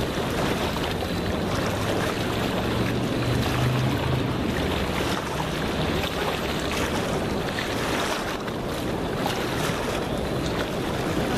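Steady rush of wind on the microphone mixed with river water washing against the rocky bank.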